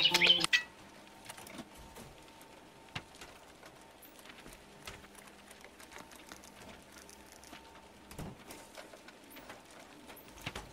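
Music that cuts off about half a second in, then faint, scattered clicks of typing on a computer keyboard.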